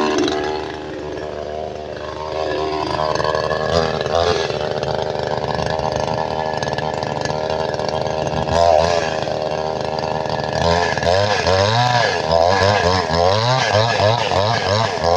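Chainsaw engine running at speed. It dips briefly just after the start, and from about two-thirds of the way in its pitch wavers quickly up and down.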